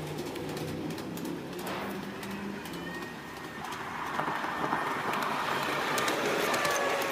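Small steel wheels of a homemade wooden rail trolley rolling along a miniature backyard track, with sharp clicks as they cross the rails. The rolling grows louder from about three and a half seconds in as the trolley comes closer, with thin squealing tones over it.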